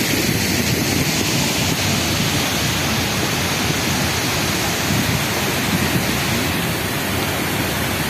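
Chitrakot Falls on the Indravati River, a steady loud rush of falling water with no breaks.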